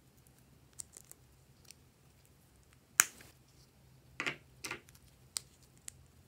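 Small plastic clicks and taps from handling a little hinged plastic pot and a plastic spatula, the loudest a single sharp snap about three seconds in as the pot's lid is shut. A couple of short scraping rustles follow just after four seconds, then two more light clicks.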